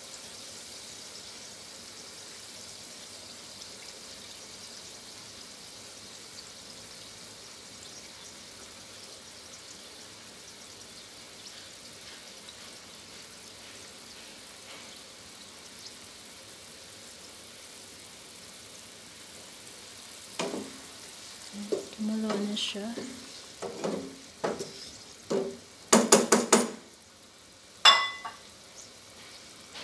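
Pineapple curry sauce simmering in a frying pan, a steady faint bubbling hiss. In the last few seconds a run of knocks and clattering, loudest near the end.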